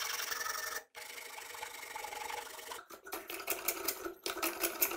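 Hand tools working a maple axe handle: a steady rubbing scrape on the wood, then from about three seconds in a quick run of short metal hand-plane strokes across the handle's edge.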